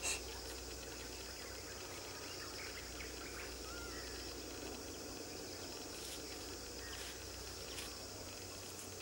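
Steady high chirring of insects in rural grassland, with a few short bird calls. A brief sharp click right at the start.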